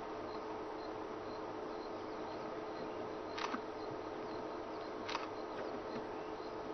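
Quiet open-air background: a steady low hum with faint, regular high ticks, broken by two sharp clicks about two seconds apart.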